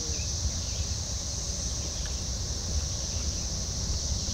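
A steady, high insect chorus of crickets or cicadas, with wind rumbling on the microphone.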